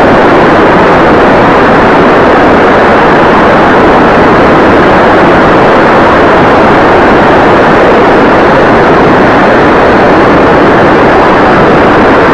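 Loud, steady rushing noise of wind and propeller picked up by an 808 keychain camera riding on a foamboard RC plane in flight, so loud that the recording is overloaded.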